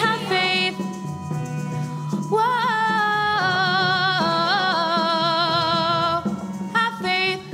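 A female soloist singing with vibrato over a live band accompaniment, drawing out a long sustained phrase in the middle with a few slow steps in pitch.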